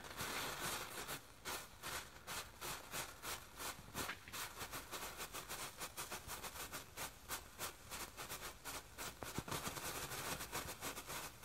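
Ground strobe firework (Flashing Demon) burning, giving a rapid, irregular popping, several sharp pops a second, one with each flash.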